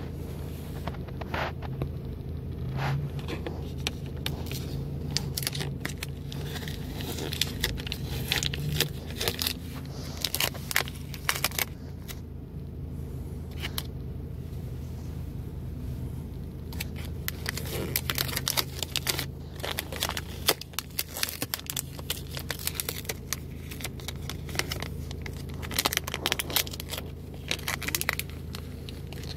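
Clear plastic salad clamshell and its bagged topping packets crinkling and crackling as they are handled, in many short, irregular crackles over a steady low hum.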